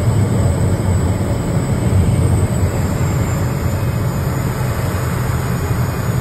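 Pilatus PC-6 Porter's engine and propeller heard from inside the cockpit on final approach and landing on a grass airstrip. It is a steady deep drone, with a faint high whine above it that slowly drifts down in pitch.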